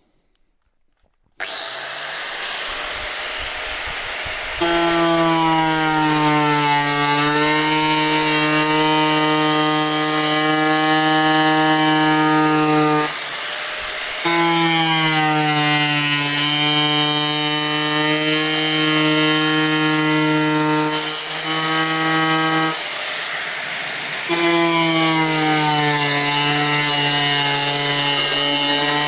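Small handheld power tool with a toothed saw disc spins up about a second and a half in, then saws into a plastic headlamp lens with a loud, steady whine. It cuts in three long passes, dropping back to a quieter free run briefly between them.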